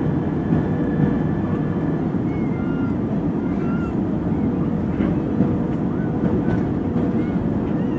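Steady cabin noise of a jet airliner in flight: engines and airflow make a dense low rumble, with a faint steady hum on top.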